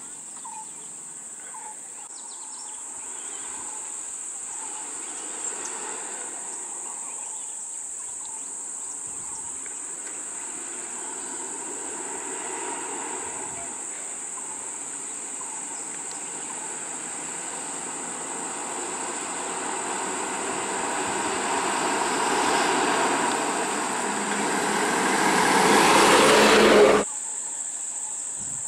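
A bus engine and tyres grow steadily louder as the bus comes close, then cut off abruptly near the end. Under it, insects keep up a steady high drone.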